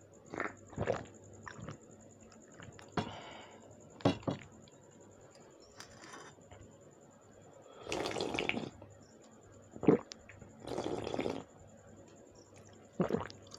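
Drinking water from a glass with gulps and swallows, close to the microphone, in a few separate short sounds with two longer ones in the second half. A sharp click about ten seconds in is the loudest sound.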